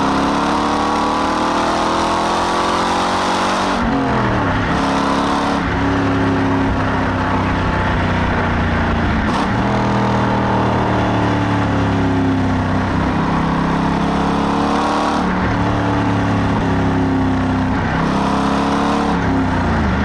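2002 Corvette C5 Z06's 5.7-litre LS6 V8 driven hard, its exhaust note climbing in revs and then dropping sharply about four seconds in at a gear change, followed by several more dips and pulls as the car is driven on.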